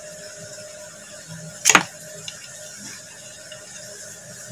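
Handmade U-shaped carving gouge set against the edge of a teak board, giving one short sharp click about halfway through, over a faint steady hum and hiss.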